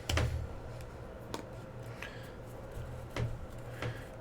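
Trading cards being handled as a pack is gone through: about five light clicks and swishes of cards sliding against each other, the first the loudest, over a steady low hum.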